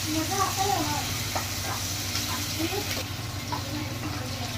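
Sliced onions sizzling in hot oil in a non-stick kadhai while a spatula stirs them, scraping and tapping against the pan now and then. The onions are at the start of being sautéed toward brown.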